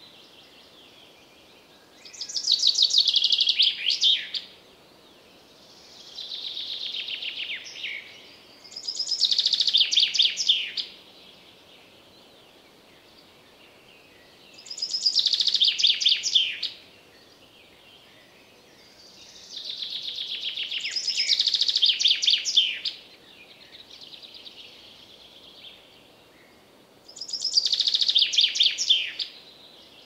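Common chaffinch singing: loud song phrases about every six seconds, each a rapid trill that drops in pitch. Fainter birdsong comes between the loud phrases.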